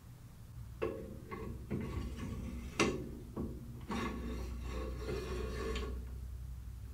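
Bandsaw rip fence mount being fitted onto the round steel fence rail: a few metal clicks and knocks, the sharpest about three seconds in, then a scraping rub for about two seconds as it slides along the rail.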